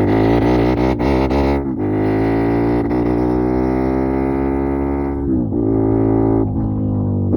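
Motorcycle engine breathing through an SC Project full-system aftermarket exhaust, running at high revs with a deep droning note; the pitch wavers with a few sharp pops in the first second or two, then holds steady, dipping briefly around five seconds in.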